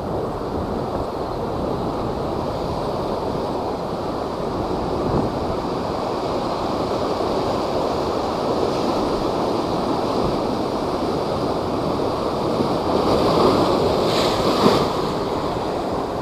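Typhoon-driven high waves surging and crashing with a continuous rush of water and wind, swelling louder for a moment near the end.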